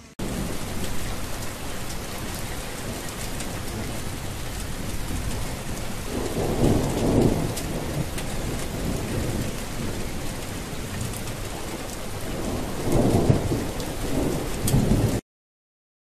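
Steady heavy rain with two long rolls of thunder, one about six seconds in and another about thirteen seconds in. The sound cuts off abruptly about a second before the end.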